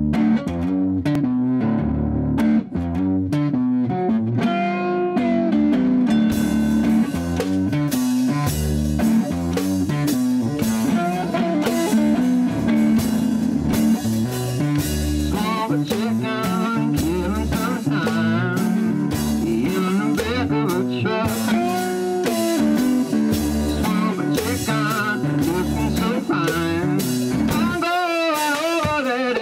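One-man band playing a bluesy rock instrumental intro: a guitar riff over a steady beat, with a foot-played hi-hat and other percussion coming in about six seconds in.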